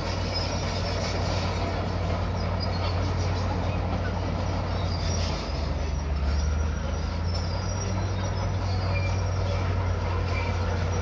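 Crawler bulldozer's diesel engine running steadily under load as it pushes a heap of dirt and stone, with scattered short high squeaks from its steel tracks. The engine note briefly drops about five seconds in.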